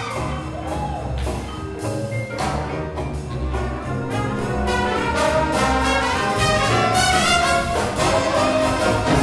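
High school jazz big band playing live: brass and saxophones over a rhythm section with drums and percussion keeping a steady beat.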